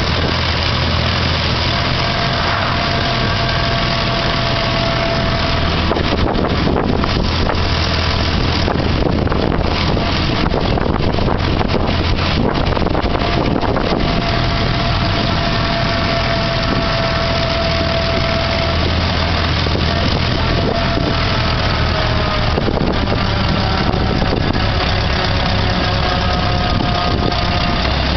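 A 1910 Ford Model T's four-cylinder engine running steadily on the move, heard from the open car with steady road and wind noise and a thin whine that drifts slightly in pitch.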